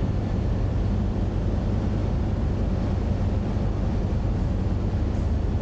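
Steady low hum of a car ferry's engines while it is underway, with an even hiss of noise over it.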